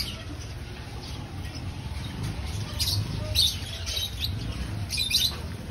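Birds chirping in short high clusters, about three seconds in and again near the end, over a steady low rumble.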